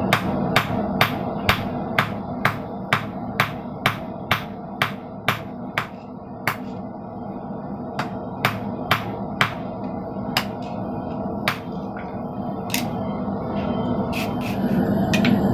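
Hand hammer striking a red-hot steel bar on a hornless steel anvil, at a steady rate of about two blows a second for the first six seconds, then in slower, irregular strikes with a short cluster near the end.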